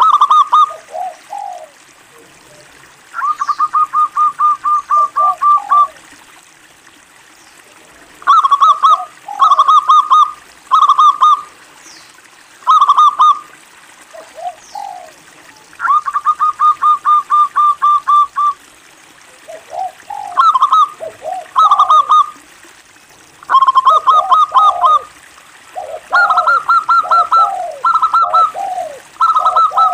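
Zebra dove (perkutut) singing: loud bouts of rapid staccato cooing notes, some long rattling runs of a dozen or more quick notes, with pauses of a second or two between bouts.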